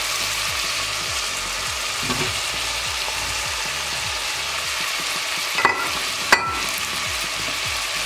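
Diced carrot and onion sizzling in hot oil in a stainless steel pot, a steady frying hiss. A little over halfway through come two sharp knocks against the pot, each with a brief metallic ring.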